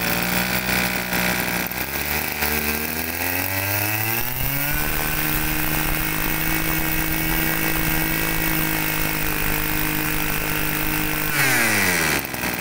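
A Ryobi two-stroke brush cutter engine idles, then revs up over about two seconds to a steady high speed. It holds that speed for about six seconds, then drops back toward idle near the end.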